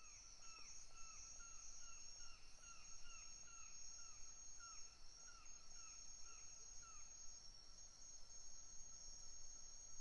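Faint nature ambience: insects trilling steadily, with a bird repeating a short falling call about twice a second that stops about seven seconds in.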